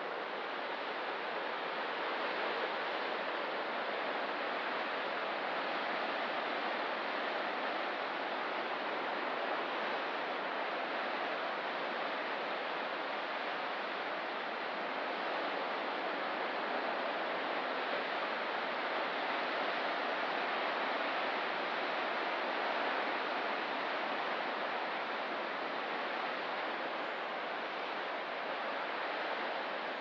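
Steady, even wash of ocean surf against a rocky shore, with no single breaking waves standing out.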